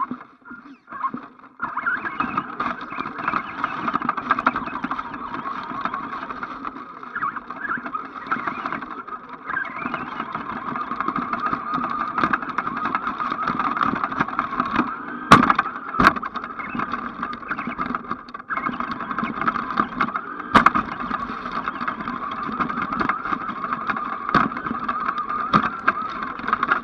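Electric motor and drivetrain of an ECX AMP radio-controlled truck whining steadily as it drives over grass. The motor comes in with a couple of short bursts before running continuously about a second and a half in, and there are a few sharp knocks around the middle and near the end.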